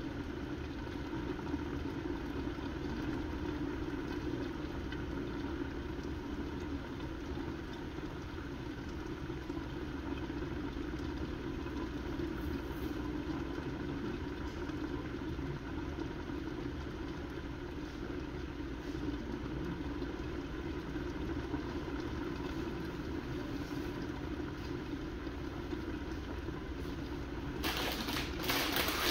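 Pot of curry chicken simmering under a glass lid on an electric stove, a steady bubbling rumble. Near the end a louder, brighter hiss comes in.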